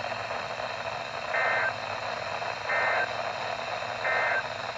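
Three short bursts of EAS SAME digital data tone, about a second apart: the brief end-of-message code that closes an emergency alert. They sound through a radio receiver, over a steady hiss.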